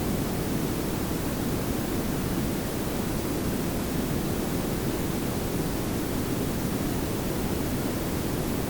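Layered pink and brown noise: a steady, even hiss with a strong low rumble beneath it, unchanging throughout.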